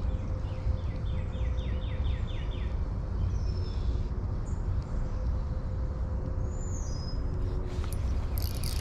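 Songbird singing a quick run of about ten repeated chirped notes, then a few higher whistled notes later, over a steady low outdoor rumble; a hissing rasp starts just before the end.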